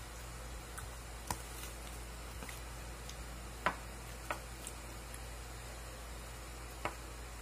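Quiet eating sounds: a few short clicks and smacks while chewing, the loudest about midway, over a steady low hum.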